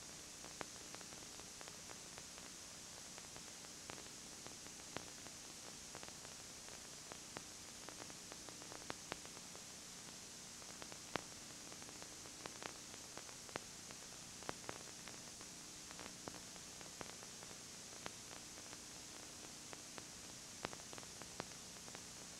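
Steady videotape hiss with scattered crackling clicks and a faint low hum: playback noise from the tape itself, with no sound from the scene.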